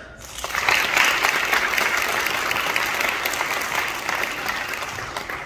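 Audience applauding, the clapping swelling quickly about half a second in and then slowly fading.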